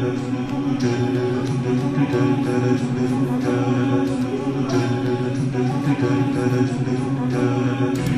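A man's voice, close on a handheld microphone, holds a steady low droning tone rich in overtones, with faint clicks scattered above it: a mouth-made imitation of a train.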